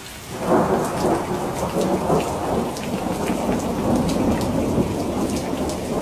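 Rain falling with a continuous rumble of thunder, swelling about half a second in, with scattered drops ticking over it.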